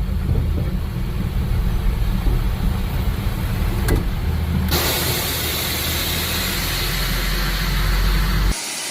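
Strong wind rushing and buffeting, with a heavy low rumble under a hiss. About halfway through the hiss turns much louder and brighter, and near the end the low rumble cuts off suddenly.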